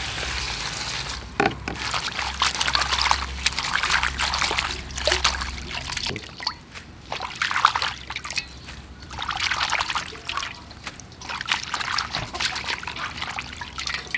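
Water sloshing and trickling as vegetables are washed by hand in a steel bowl, coming in repeated swells.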